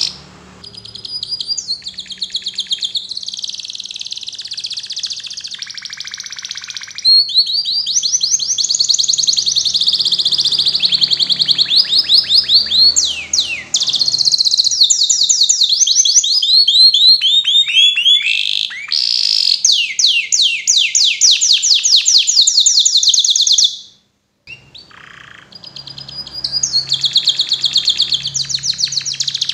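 Domestic canary singing a long, fast song of high trills and rolls made of rapidly repeated notes. The song breaks off for a moment about three-quarters of the way through, then resumes.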